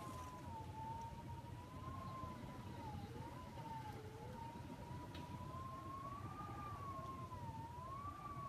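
Hurricane wind whistling through a window: one thin whistle that wavers slowly and irregularly up and down in pitch, over a low, steady rush of wind.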